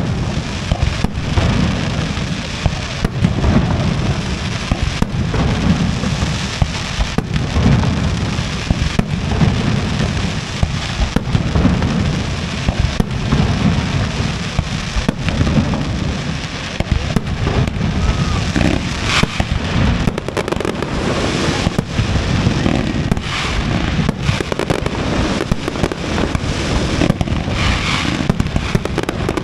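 Aerial fireworks display: a continuous barrage of booming shell bursts, with many sharp bangs and cracks going off throughout.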